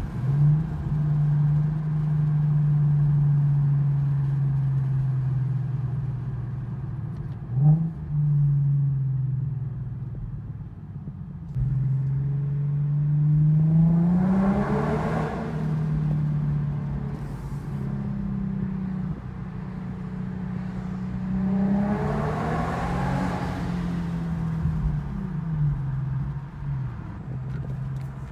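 Infiniti Q50's muffler-deleted exhaust, heard from inside the cabin: a steady drone under way, broken by quick throttle blips on downshifts about half a second and eight seconds in, and by two louder climbs in revs around 14 and 22 seconds.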